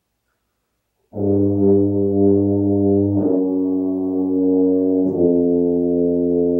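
Tuba played by a seated player: three long, sustained low notes in a row, starting about a second in and changing pitch about two and about four seconds later. The notes step down chromatically by half steps using the valves, a beginner's warm-up exercise.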